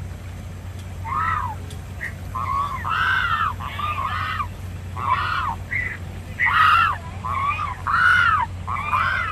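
Waterbirds giving a series of short honking calls, about a dozen, each rising and falling in pitch, over a steady low hum.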